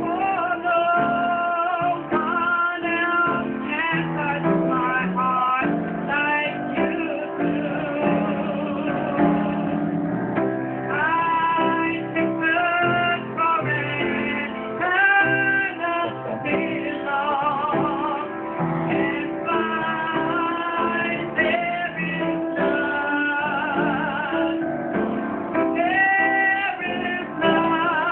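Live praise-and-worship music: voices singing a song with wavering, held notes over guitar accompaniment.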